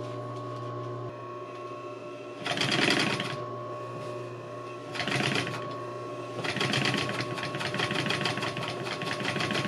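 Industrial flatbed sewing machine stitching a seam in doubled canvas, in three runs: a short one about two and a half seconds in, another about five seconds in, and a longer run from about six and a half seconds on. A steady hum is heard between the runs.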